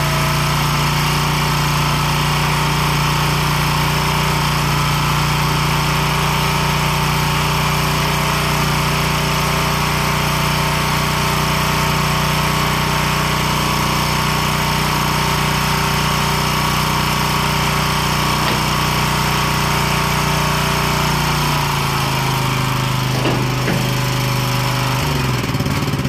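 Small gasoline engine of a Vermeer walk-behind trencher running steadily at high speed. About three-quarters of the way through it drops to a lower speed, and it shuts off right at the end.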